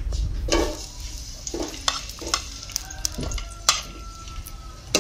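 Sliced shallots sizzling in hot cooking oil in a stainless steel pot after being tipped in, with a steady hiss, while a metal spoon knocks and scrapes a few times as they are stirred.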